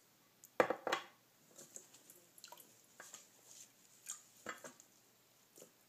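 Glass measuring cup handled on a stone countertop: two sharp knocks about half a second in, then scattered light taps and clinks as a cloth insert is set into the cup.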